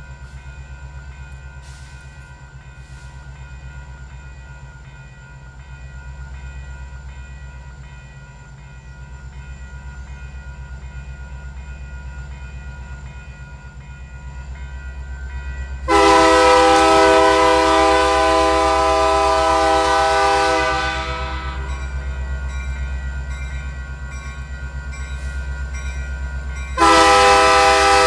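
Diesel locomotive of a ballast work train rumbling steadily. About halfway through, its air horn sounds a long, loud blast. The horn keeps sounding more softly for several seconds, then blares loudly again near the end.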